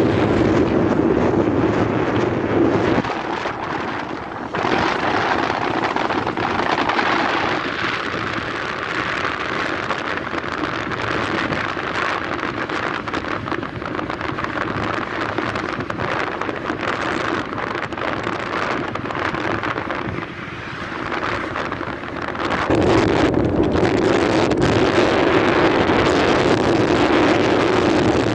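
Wind buffeting the microphone of a moving vehicle, over its steady engine and road noise. A lower hum is stronger for the first three seconds, fades through the middle, and returns for the last five.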